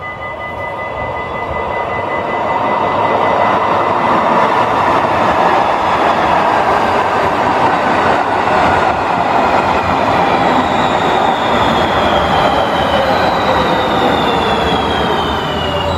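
RET SG2/1 light-rail metro train running past at close range. A loud rush of wheels on rail builds over the first few seconds, and several whining tones from its electric motors slowly fall in pitch.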